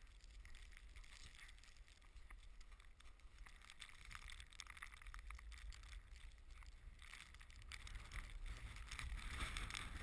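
Low wind rumble on the microphone, with faint rattling and crunching from a wire shopping cart being pushed across snow; it grows louder over the last couple of seconds.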